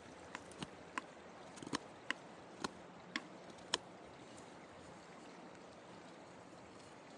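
Carving knife slicing thin shavings off a cherry wood spoon handle: about eight sharp clicks in the first four seconds, over a steady faint background hiss.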